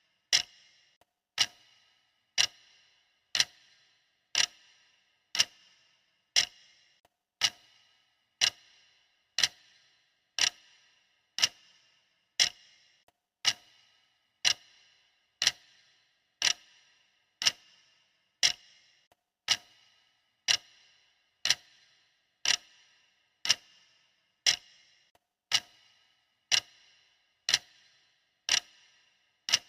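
Clock-style stopwatch ticking: one sharp tick each second, steady and even.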